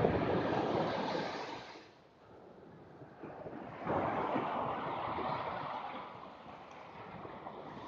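Ocean surf breaking and washing up a sandy beach in two surges: the first wash fades out about two seconds in, and another wave comes up the sand about four seconds in and slowly drains away.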